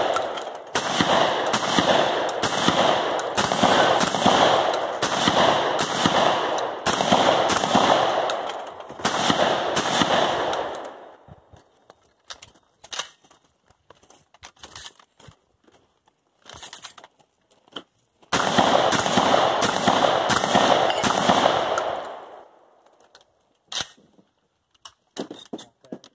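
Shotgun fired in a rapid string, roughly one to two shots a second, each blast trailing off in echo. After about eleven seconds comes a lull of several seconds with only small clicks while shells are loaded, then a second quick string of shots.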